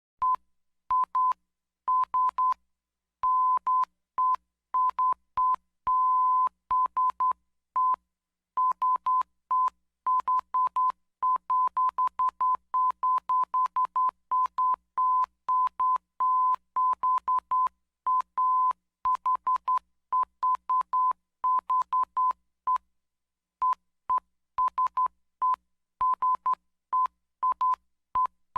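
Morse code beeps: a single steady tone of about 1 kHz keyed on and off in short dots and longer dashes, with short gaps between characters and slightly longer gaps between groups. Each beep starts and stops with a faint click.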